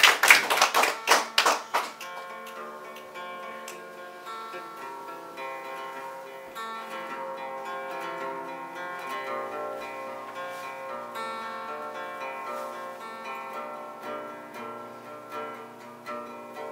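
Audience applause fading out over the first two seconds, then a solo acoustic guitar playing an instrumental passage, single notes and chords ringing out.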